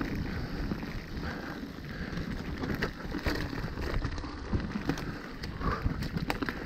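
Mountain bike rolling down a rocky dirt trail: tyre rumble over the ground, with scattered clicks and knocks from the bike rattling over stones.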